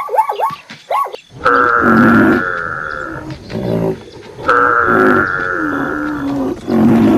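Animal calls: a quick run of short falling chirps, then a long, loud, drawn-out call repeated three times, with a rough lowing quality.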